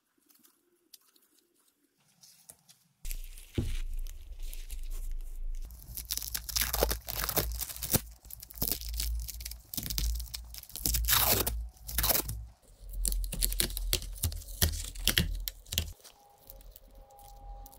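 Red polypropylene builder's tape (Tuck Tape) being pulled off the roll and pressed down over lithium-ion battery cells, with loud ripping screeches as strips come off the roll and crackling handling of the tape between them. It starts after about three seconds of near silence.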